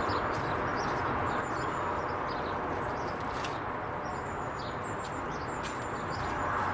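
Small birds chirping and twittering, with a few high thin whistled notes, over a steady outdoor background hiss.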